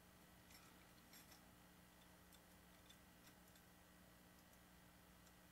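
Near silence: faint room tone with a few soft, scattered clicks in the first few seconds.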